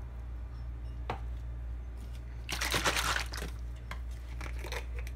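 Kitchen handling noise: a brief crinkling rustle about two and a half seconds in, with a few light clicks before and after it, over a steady low hum.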